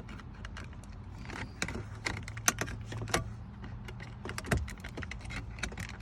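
Irregular sharp plastic clicks and rattles as the gear shifter knob of a 2014 Chrysler 300 is worked loose and pulled off, over a low steady hum.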